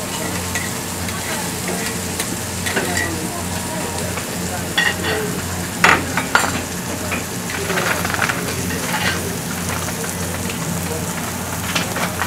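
Food sizzling steadily on a teppanyaki iron griddle, with metal spatulas scraping and clinking against the hot plate, the sharpest clinks a few times around the middle.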